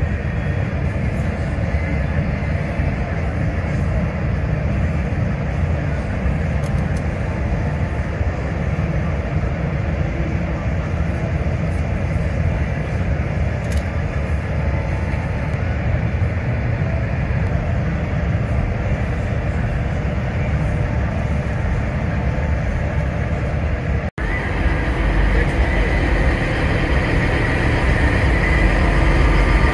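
Steady low rumble of heavy diesel trucks idling. It breaks off for an instant near the end and comes back louder.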